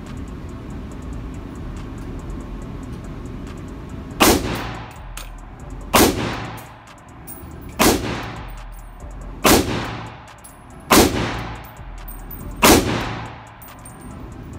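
Six single shots from an AK-pattern Draco pistol, spaced about one and a half to two seconds apart, starting about four seconds in. Each shot rings out with a short echo in the indoor range.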